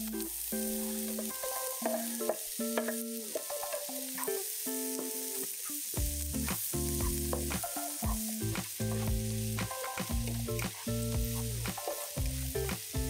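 Food frying and sizzling in oil in a pan, stirred with a utensil that clicks against it now and then. Background music plays over it, with a bass line coming in about six seconds in.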